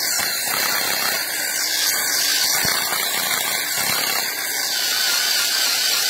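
Power drill running steadily with a 3/8-inch bit, wallowing out a hole in a metal lock bracket to widen it.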